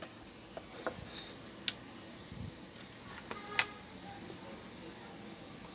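Light clicks and taps of small parts being handled on a workbench, three sharper clicks among them, the loudest just under two seconds in, over a faint steady hum.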